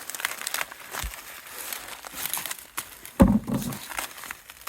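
Dry maize stalks and husks rustling and crackling as they are handled, with one dull low thump about three seconds in.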